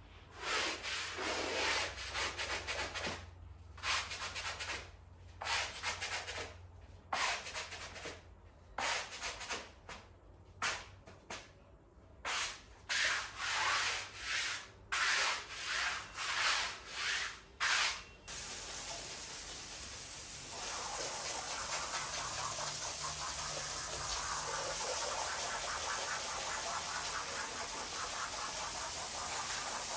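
A stiff long-handled scrub brush scrubbing a soapy, foam-covered rug in irregular strokes, about one or two a second. About eighteen seconds in the scrubbing stops and the steady hiss of a pressure-washer jet takes over, rinsing the foam off the rug, growing a little louder a couple of seconds later.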